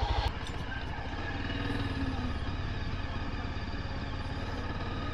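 Yezdi Adventure motorcycle's single-cylinder engine running steadily at low revs, a low even pulsing.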